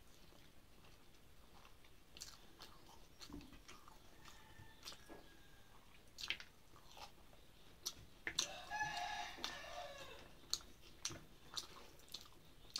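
Close-up mouth sounds of a person eating rice and fried vegetables by hand: chewing with many small sharp clicks and crunches. A rooster crows once in the background about eight seconds in, its call falling at the end.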